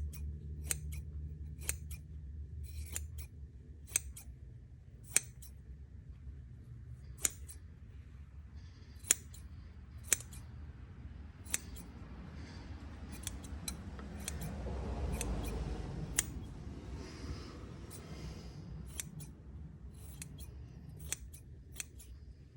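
An old pair of freshly sharpened sewing scissors snipping during a cutting test, a sharp snip of the blades about once a second with a stretch of rustling in the middle. They are cutting cleanly, "like butter".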